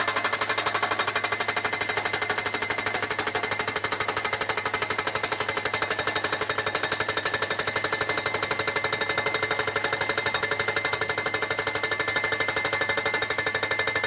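Vermeer PD10 pile driver's hydraulic hammer striking a steel post in rapid, even blows, driving it into the ground, with a steady high ring over the blows.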